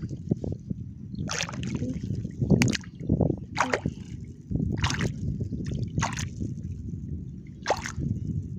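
A hand sloshing through shallow water and groping in the muddy bottom, with about six short splashes over a steady low rumble.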